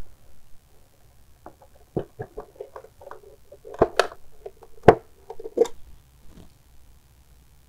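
Clicks, taps and light rattles of hand work on a small motorcycle: a key turning in the side-cover lock with the other keys on its ring rattling. The loudest clicks come about four and five seconds in.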